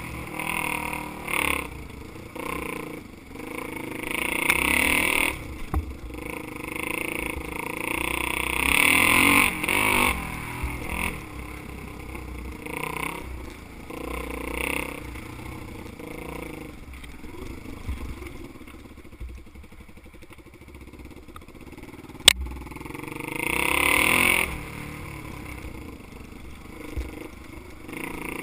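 Dirt bike engine under way on a rough trail, revving up and backing off several times, quieter for a stretch past the middle. A single sharp knock about three quarters of the way in.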